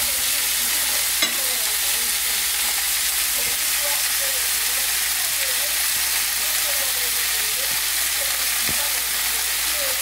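Raw pork belly slices sizzling steadily in a hot frying pan, with one sharp click about a second in.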